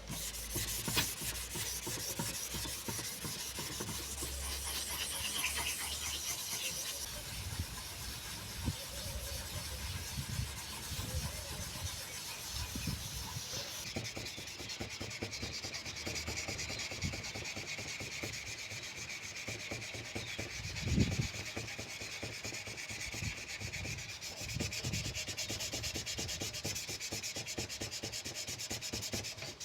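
Hand sanding: sandpaper rubbed over a surface in quick, steady back-and-forth strokes, with the scratching changing in tone about halfway through.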